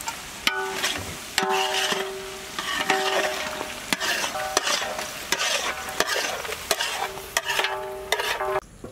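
Flat metal spatula stirring mutton and freshly added spice powders in a large aluminium pot, scraping and knocking against the pot with a ringing tone each time, over the sizzle of the meat frying. The sound drops away shortly before the end.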